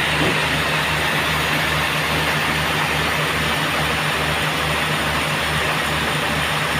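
Band sawmill machinery running steadily, a low throb about twice a second under a constant hum and whirr.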